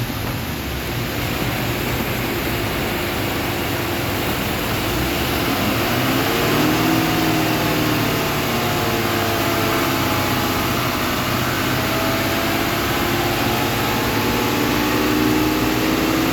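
Nissan Patrol Y62 V8 engine running under the hood, a steady hum with a pitch that rises about six seconds in, eases back, and climbs again near the end.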